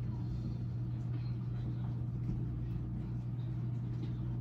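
Electric blender motor running steadily with a constant low hum, churning a thick pudding mixture. The motor is overheating and giving off smoke.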